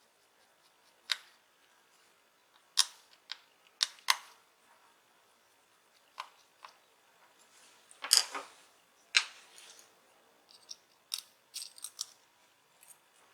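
Scattered sharp clicks and light taps of a small screwdriver and tiny screws on a smartphone's internal frame as three screws are removed, a few at a time, the loudest about eight and nine seconds in.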